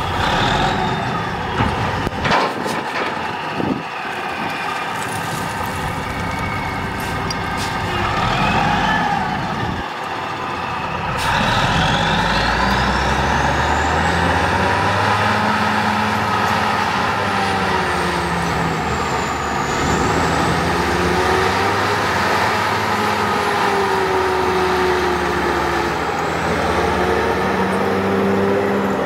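Clark Michigan 475B wheel loader's big diesel engine running hard while loading a dump truck, with a whine that rises and falls. A couple of sharp knocks sound about two and four seconds in.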